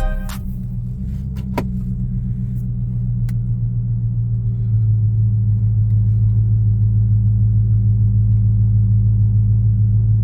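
Dodge Magnum car running: a steady low rumbling drone that grows a little louder about halfway through.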